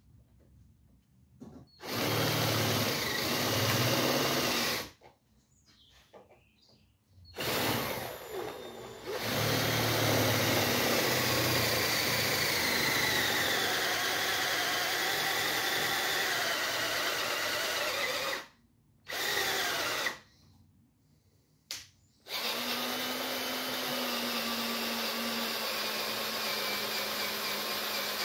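Electric drill run in four starts and stops, the longest about ten seconds, drilling out a screw whose head has broken off. Its motor whine sags and recovers in pitch as the bit bites.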